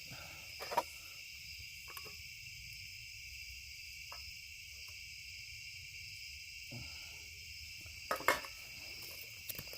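Steady chorus of night insects, a constant high-pitched trill. A few faint clicks and knocks break in, the loudest a little after eight seconds in.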